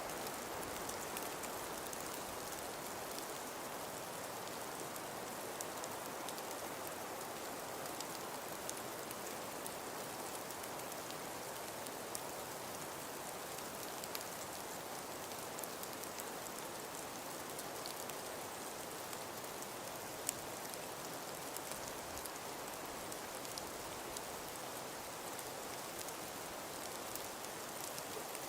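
Steady hiss of wind-driven precipitation, billed as a blizzard of wind and snow, with many small ticks of grains striking surfaces and one slightly sharper tick about twenty seconds in.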